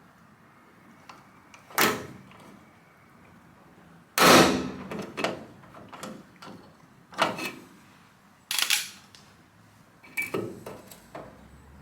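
Rivet gun setting blind (pop) rivets in the aluminium bed skin, a series of sharp snaps as the rivets are pulled and their stems break off, the loudest about four seconds in.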